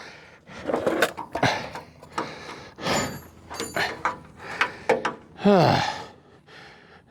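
Irregular metal clanks and knocks of a ratchet and socket working on the stubborn steering box mounting bolts of a Ford truck, with a strained groan of effort about five and a half seconds in.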